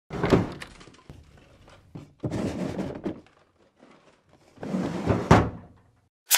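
A dull thump, then a stretch of rustling noise, and a second sharp thump about five seconds in, with a sharp click at the very end; dark-room foley.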